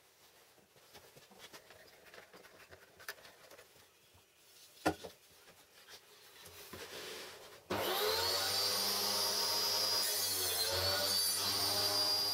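Table saw starting abruptly about two-thirds of the way in and running with a high whine, its pitch sagging briefly as the blade cuts a board held at 45° in a sliding angle jig. Before it, light clicks and a single knock from the wooden jig being handled.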